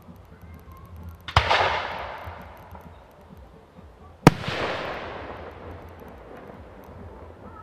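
Two fireworks shells bursting about three seconds apart; the second bang is the louder. Each is a sharp bang followed by a long fading crackle.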